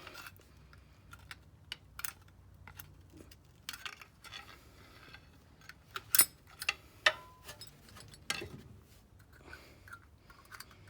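Scattered metal clicks and clinks as a worn rear brake pad is worked out of the caliper bracket, the loudest knocks about six and seven seconds in.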